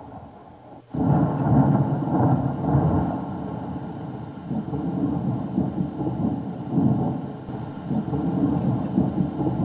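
Recorded thunder sound effect played by a DY-HV20T MP3 sound module: it breaks in suddenly about a second in, then rolls on as a rumble that swells and fades.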